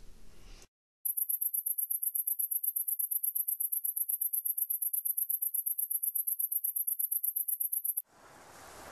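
A cricket chirping: a very high-pitched, rapid, evenly pulsing trill that starts about a second in and cuts off suddenly near the end. As it stops, the wash of ocean surf begins and slowly rises.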